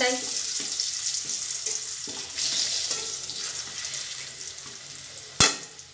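Potato chunks sizzling in hot mustard oil in a kadai while a metal spatula stirs them. The sizzle slowly dies down, and there is one sharp clack of the spatula against the pan near the end.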